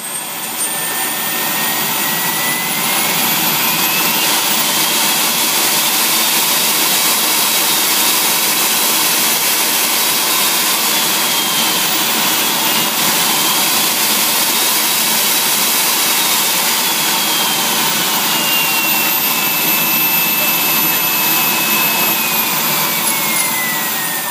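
Jetcat P20-SE model jet turbine running, a high whine over a steady rush of exhaust. The whine rises as the turbine spools up over the first few seconds, dips briefly and recovers midway, then falls as it is throttled back toward idle.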